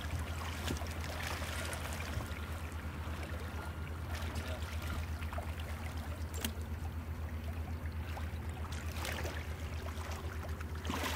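Water splashing and trickling against the side of a small boat as a white sturgeon is handled alongside, over a steady low hum with a fast, even throb.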